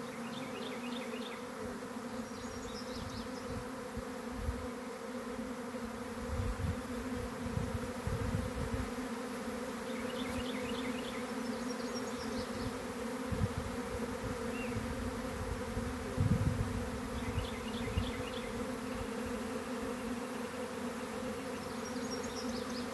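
A swarm of honeybees buzzing around their cluster on a tree branch: a steady hum, with a few faint high chirps now and then.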